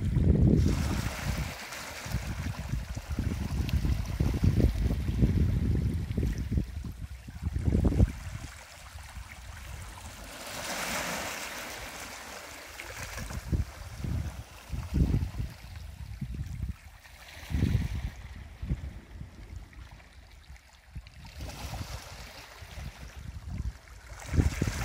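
Small harbour waves washing up over a concrete slipway and its stones, with a hissing wash over the ramp about ten seconds in and another around eighteen seconds. Wind buffets the microphone with low rumbles, heaviest in the first eight seconds.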